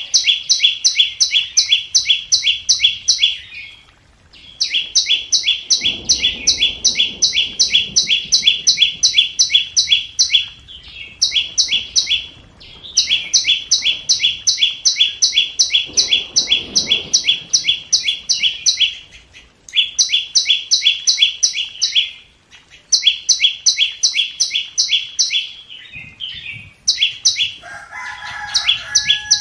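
A flowerpecker calling: long runs of sharp, rapidly repeated high ticking notes, several a second, in bouts of a few seconds with short pauses between. It is used as a decoy call to lure wild birds. Near the end a lower warbling note sounds under the ticking.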